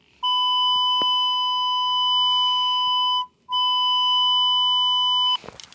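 Radiodetection C.A.T4 cable locator sounding its steady electronic beep tone as it picks up the signal on the buried fibre's tracer wire: one long tone of about three seconds, a short break, then a second tone of about two seconds.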